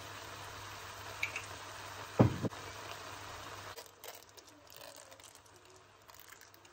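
Sauce squeezed from a squeeze bottle onto noodles in a wok: two short sputtering squirts about two seconds in, over a steady hiss that drops away just before the middle.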